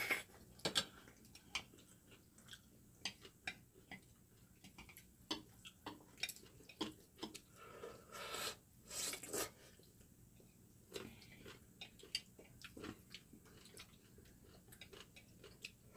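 Eating sounds: kimchi bibim noodles slurped and chewed, with scattered light clicks of chopsticks and a fork against ceramic bowls. A longer slurp comes about eight seconds in, as a bowl is tipped up to the mouth.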